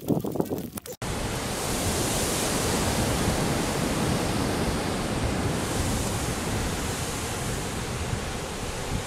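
A second of scattered crackles and knocks, then a sudden cut to a steady, dense rushing noise: the Kilauea 'fire hose', a stream of molten lava about a metre across pouring into the sea amid clouds of steam, mixed with surf.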